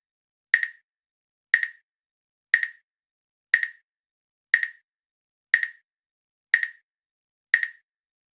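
Countdown timer tick sound effect: eight short, sharp, identical ticks, evenly one per second.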